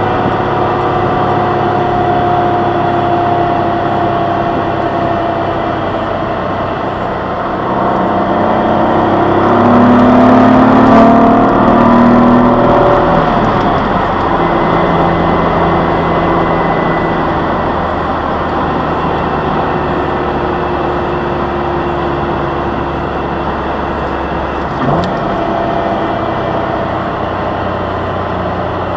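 The 2003 Jaguar X-Type's 2.5-litre V6 is heard from inside the cabin while driving. Its note rises and grows louder under acceleration from about 8 s, breaks and drops in pitch around 13 s at a manual upshift, then runs steadily again. A short knock comes near the end.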